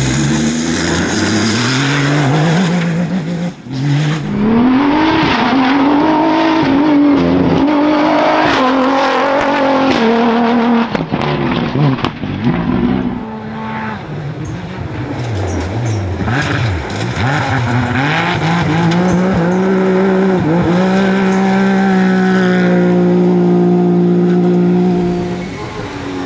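Rally-raid off-road racing cars driven hard on dirt and gravel stages, engines revving up and falling back through gear changes as they pass, with tyre noise on the loose surface. Near the end one engine holds steady high revs for a few seconds.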